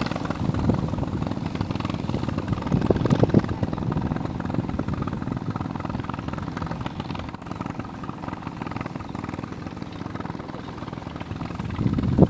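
A boat's motor running steadily as a low, rough rumble.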